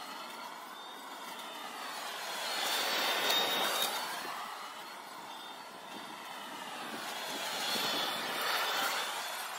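Electric walk-behind lawn mower running steadily with a high whine as it is pushed over the grass, cutting. It swells louder twice, about three seconds in and again near the end, as the mower comes close.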